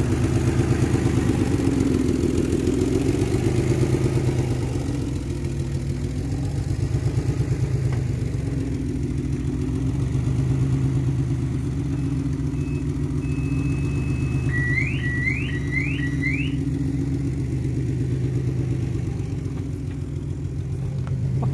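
Turbo-converted Mitsubishi FTO engine idling, its note wavering up and down every second or two. About two-thirds of the way in, four quick rising chirps are heard over it.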